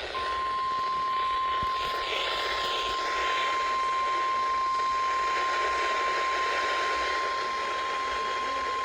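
Weather-radio emergency alert tone: one steady high tone held for about nine seconds over background noise, signalling that a warning is about to be broadcast.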